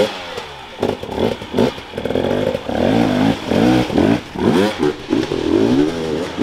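Enduro dirt bike engine revving hard in repeated bursts, its pitch rising and falling again and again, as a rider works the throttle through a technical section.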